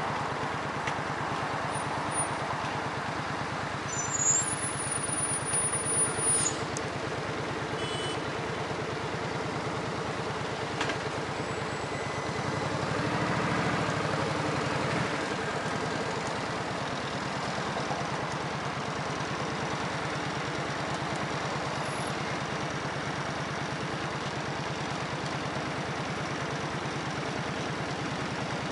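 An engine running steadily with an even low throb, with a few brief high-pitched tones about four to six seconds in.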